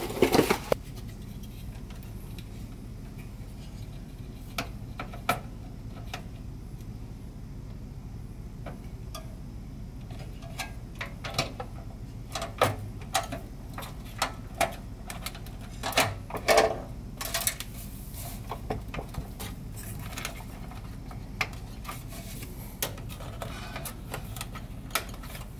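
Scattered light clicks and knocks of an MSI GeForce GTX 970 graphics card being handled and fitted into a desktop PC case, few at first and coming more often in the second half.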